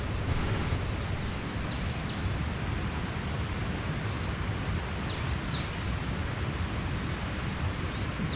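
Mountain stream flowing steadily, a constant rushing with a deep rumble. Over it, a small bird gives short high chirps in pairs a few times.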